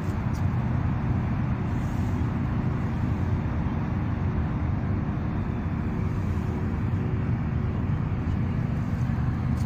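Steady low traffic rumble with a faint, even hum in it.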